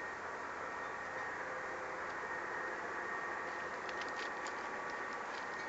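Steady hiss with a faint, high, steady tone, and a few small clicks in the second half as dry twigs and birch bark are handled and set into a small homemade wood stove.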